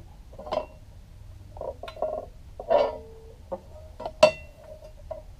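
Handling noises of a power feeder's gear cover being fitted back onto the gearbox and screwed down: scattered light clicks, knocks and a rustle, with one sharp, ringing clack about four seconds in.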